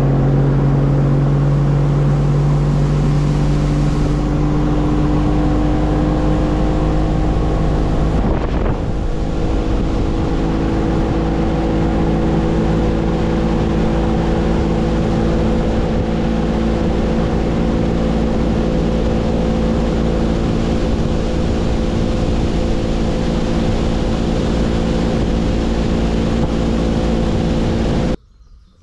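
Bass boat's outboard motor running under way, its pitch creeping up over the first several seconds, then holding steady. The sound stops abruptly near the end.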